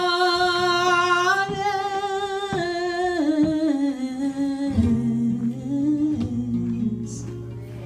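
Female flamenco singer (cantaora) holding a long, wavering melismatic note that steps down in pitch, in an alegrías, over flamenco guitar. The voice sinks lower and softer in the second half while the guitar's low notes ring on.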